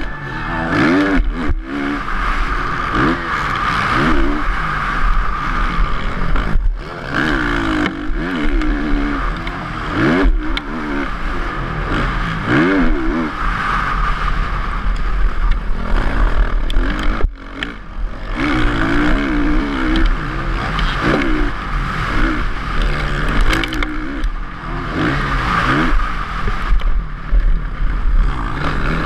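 Motocross bike engine heard onboard, revving up and down over and over as the rider accelerates and backs off through the corners and straights, over a steady rushing noise. The sound drops out sharply for an instant a few times.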